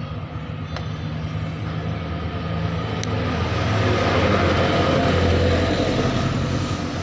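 A motor vehicle engine passing by, growing louder to a peak about two-thirds of the way through, then easing off.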